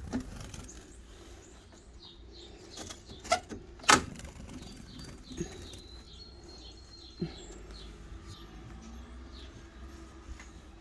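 A fledgling bird loose indoors, fluttering and bumping: a few brief flaps and taps, the sharpest about four seconds in, over a quiet room.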